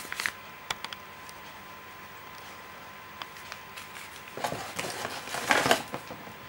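Paper pamphlets and box packaging being handled: a few light clicks, then a burst of paper rustling about four and a half seconds in.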